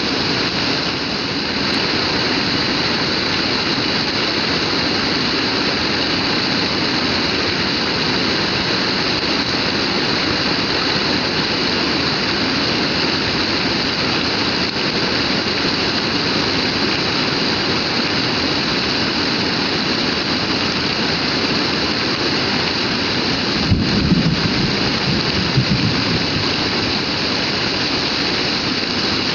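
Heavy rain pouring down in a steady, dense hiss. About 24 seconds in, a sharp click is followed by a brief low rumble, with a smaller rumble a couple of seconds later.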